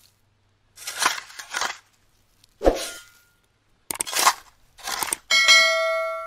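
Animated-intro sound effects: a few short whooshes, a low thump between two and three seconds in, and a sharp mouse click about four seconds in as the Subscribe button is pressed, then a bright notification-bell ding that rings on and fades away.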